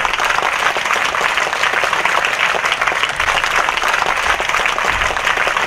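A large crowd applauding steadily: many hands clapping at once.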